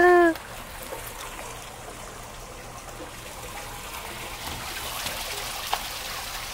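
Water trickling steadily along a shallow concrete play channel.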